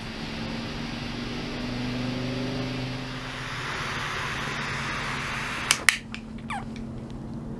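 Butane jet-flame torch lighter burning with a steady hiss and a low hum as it toasts and lights the foot of a cigar. Two sharp clicks come about six seconds in.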